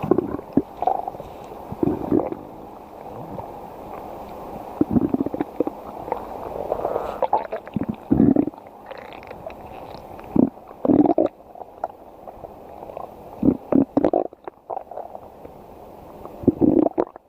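Stomach growling and gurgling in irregular bursts every second or two, a full stomach digesting a meal of pizza.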